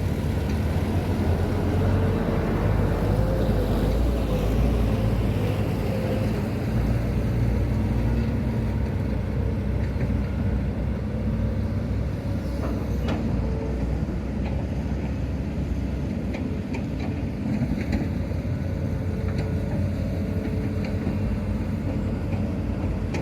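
Heavy diesel engines running steadily: a Hitachi ZX200-5G excavator and ten-wheel dump trucks, as a continuous low drone with a few faint knocks about halfway through.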